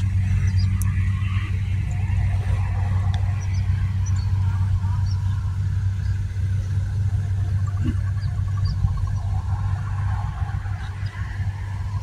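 Kubota DC-70G Plus combine harvester running steadily while harvesting rice, its engine giving a constant low hum with a faint clatter of machinery over it.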